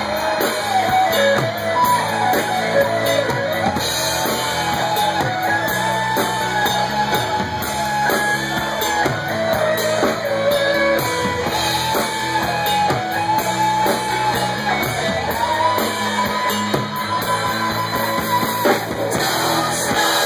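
Live band playing loud amplified rock music, with guitar and a wavering lead melody over a steady beat.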